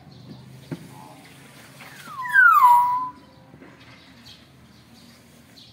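Nias hill myna giving one loud call about two seconds in: a whistle that slides down in pitch, then holds level briefly before cutting off.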